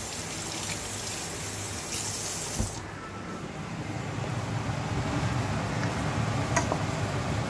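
Kitchen tap running water over red chili peppers being rinsed by hand. About three seconds in this gives way to a lower, steady rumble from the stove, where a pot of chicken is steaming, growing slightly louder.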